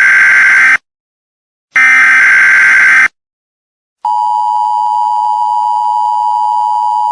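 Emergency Alert System header bursts: a burst of digital data tones ends just under a second in, and a second burst of about a second and a quarter follows after a gap. About four seconds in, the steady two-tone EAS attention signal begins.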